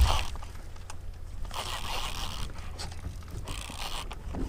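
Wind rumbling on the microphone, with intermittent scraping and rustling as a fishing rod and reel are handled.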